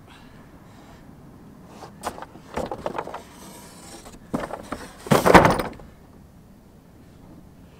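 Cardboard shipping box handled and laid onto wooden roof-rack slats: a few knocks and rustles, then a louder scraping slide with a dull thud as it settles, about five seconds in.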